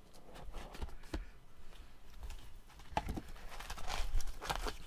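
A small sealed trading-card box being opened by hand: scattered taps, scrapes and rustling of the box and its packaging, busier and louder near the end.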